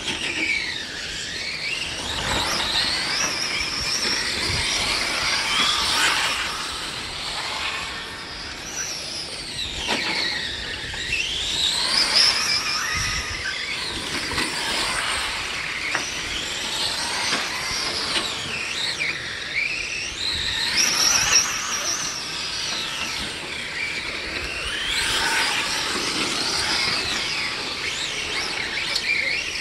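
Several RC cars racing on a dirt track, their motors whining high, rising and falling in pitch over and over as they speed up and slow around the corners.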